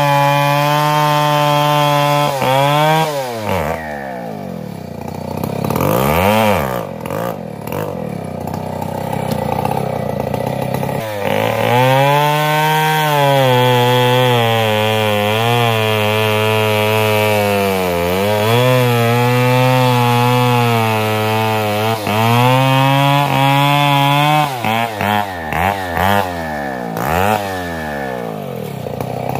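Two-stroke chainsaw at full throttle. About three seconds in it drops to a low idle, with one quick rev. From about eleven seconds it runs at full throttle again, the pitch sagging as if under cutting load, then near the end it is revved in a string of quick blips.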